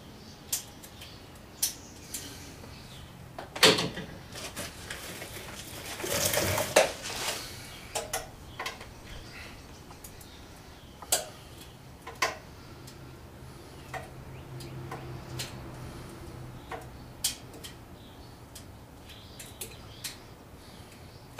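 Scattered metallic clicks and clinks of a hand wrench working the top rocker box bolts of a Harley-Davidson V-twin engine, a dozen or so single knocks spaced a second or more apart, with a longer rustling scrape about six seconds in.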